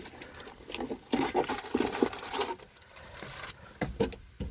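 Rummaging through a car's storage compartment: papers rustling and things being handled, with scattered light clicks and a few sharper knocks near the end.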